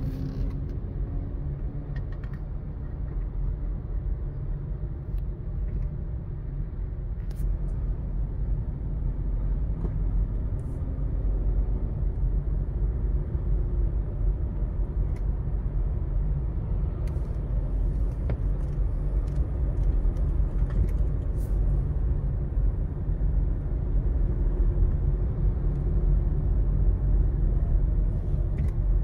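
Car heard from inside the cabin: steady low rumble of engine and tyres on the road, growing slightly louder toward the end.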